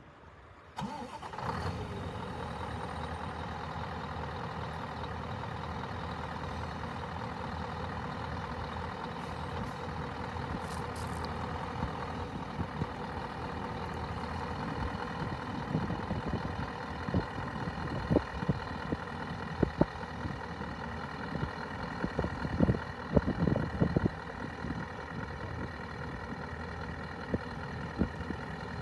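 Scania R620's V8 diesel engine starting about a second in, then idling steadily. A few sharp knocks sound over the idle in the second half.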